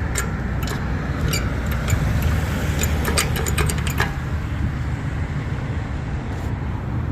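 Steady road-traffic rumble at a street intersection, with a run of sharp, irregular clicks in the first few seconds, several in quick succession about three seconds in.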